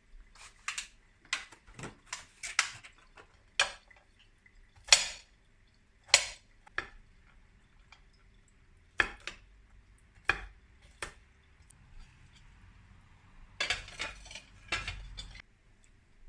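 Kitchen utensils and dishes clinking and knocking against each other in a string of irregular sharp clinks, bunched together about three-quarters of the way through.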